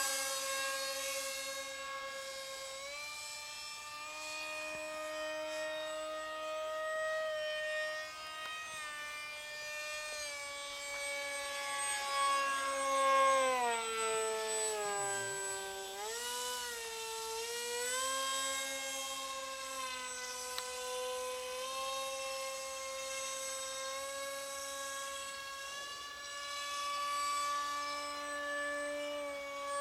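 Model MiG-29 jet's motor droning in flight. Its pitch sags and recovers about halfway through as it swoops past, then holds steady again.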